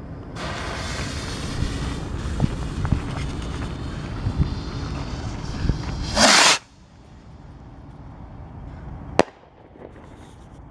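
Phantom Fireworks Happy Rockets going off: a hissing rush lasting several seconds with a few small pops in it, then a loud short whoosh about six seconds in. A single sharp crack comes about three seconds later.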